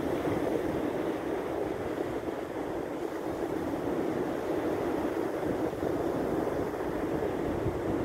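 Steady rushing of surf breaking on a sandy shore, mixed with wind on the microphone.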